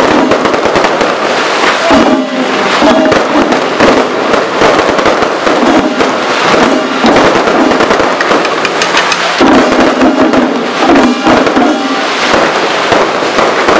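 Fireworks going off in a rapid, unbroken barrage of bangs and crackles as shells burst overhead.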